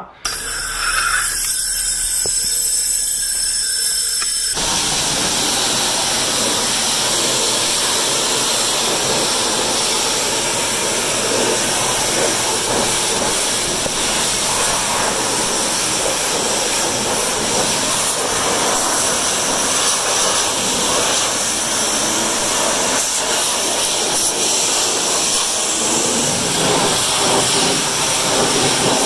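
Pressure washer jet spraying water at close range onto a mower's body and tyre: a steady hiss and rush of water, thin at first, becoming fuller and louder about four and a half seconds in.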